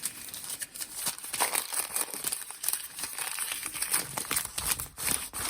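Plastic packaging bags crinkling and rustling as they are handled and pulled open, in a dense run of irregular crackles.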